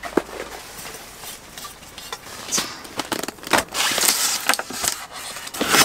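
Handling noises on a wooden camp table: items set down with light knocks and clicks, then a styrofoam box shifted and handled, with a scraping rustle about four seconds in.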